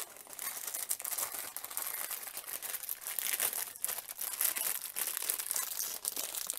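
Small plastic parts bag of building bricks crinkling and rustling continuously as it is pulled and twisted in an attempt to tear it open; the film is tough and does not give.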